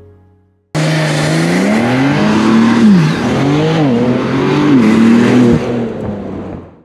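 BMW G8x M3/M4 twin-turbo inline-six revving: it cuts in suddenly, climbs in revs, drops back, then is blipped up and down several times before fading out near the end.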